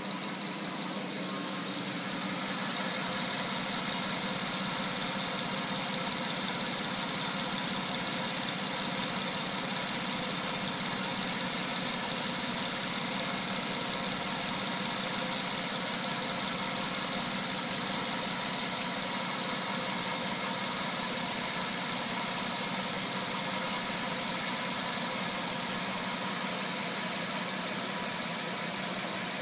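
Jaguar XJS 6.0 V12 engine idling steadily, its idle now stable after a leaking vee top plate gasket and breather seals that caused a vacuum leak were replaced. About two seconds in, a steady rush of air comes in on top and stays: the electric cooling fans running at full speed.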